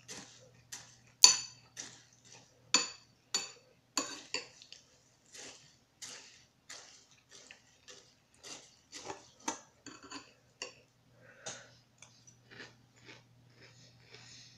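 A spoon clinking against a cereal bowl while crunchy Fruity Pebbles cereal is eaten: an irregular run of sharp clicks, the loudest in the first four seconds, with quieter chewing between them.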